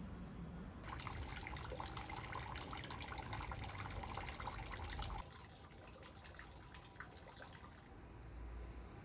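Water trickling and splashing into a stone hand-washing basin, a steady patter that starts suddenly about a second in and drops abruptly to a fainter trickle about five seconds in.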